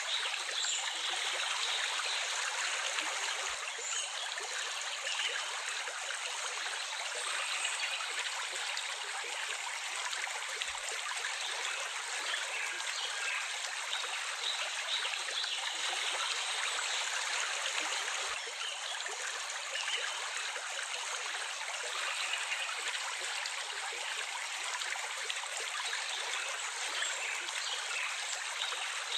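Stream of running water, a steady even rush without pauses.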